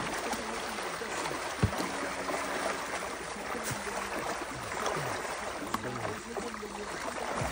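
Muddy pond water splashing and churning as a seine net is dragged through it and the hybrid catfish trapped in the net thrash, with one sharp knock about a second and a half in.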